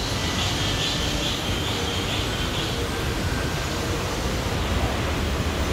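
Steady rumbling hum and hiss of an elevated Skytrain station platform and escalator hall. A faint high warbling tone comes and goes in the first few seconds.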